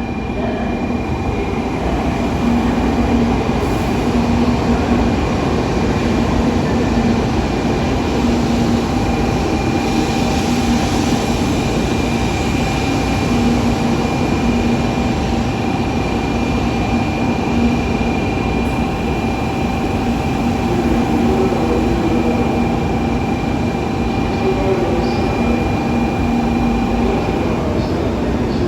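Train at a station platform: a steady rumble with an even, unchanging hum of several tones.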